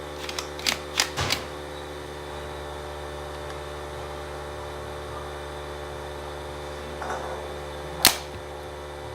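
Sharp plastic clicks from a toy six-barrel revolving dart blaster being handled: a quick run of clicks in the first second and a half, then one loud snap about eight seconds in, over a steady electric hum.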